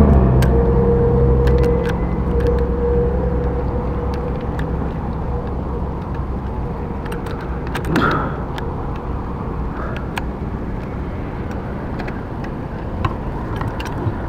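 A motorized bicycle's small engine running. Its tone fades out over the first couple of seconds and leaves a steady, quieter rumble, with a brief swell about eight seconds in.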